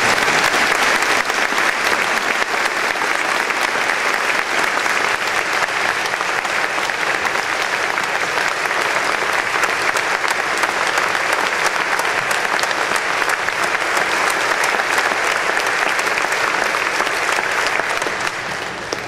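A large crowd clapping steadily for a long stretch, thinning out near the end.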